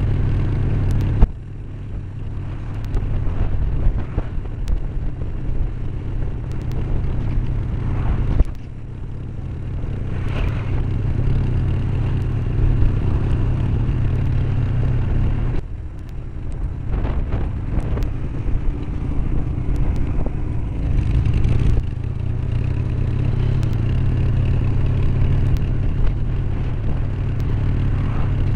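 Riding noise from a helmet-mounted camcorder on a Honda Shadow Aero 1100: wind rushing over the microphone, with the motorcycle's V-twin engine running underneath. The sound drops sharply four times and builds back up after each drop.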